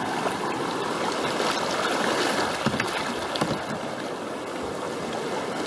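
Steady rush of a creek outflow running white over rocks into the sea, heard from a kayak sitting in its current.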